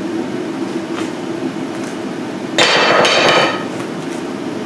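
A single loud, ringing metallic clang about two and a half seconds in, lasting under a second, as the steel torsion bar strikes something hard. Underneath is the steady hum of a running propane forge.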